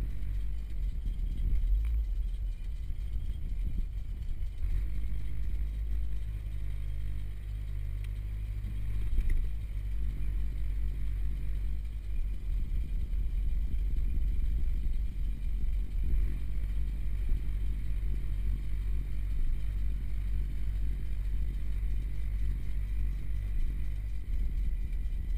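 Honda Civic's engine running, heard from inside the closed cabin as a steady low rumble.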